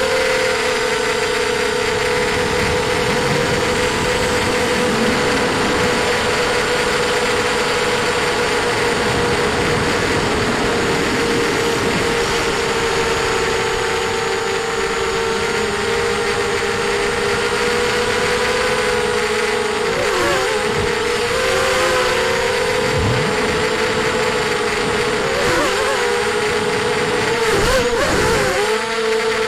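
ZMR250 quadcopter's brushless motors and 5x4 propellers whining steadily in flight, heard through the onboard camera along with wind rush. The pitch wavers briefly a few times in the later part.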